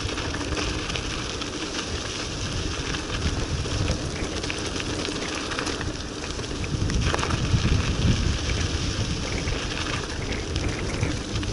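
Mountain bike descending a dirt and gravel road: a steady rush of tyres crackling over the loose, muddy surface, with wind rumbling on the microphone, a little louder a few seconds before the end.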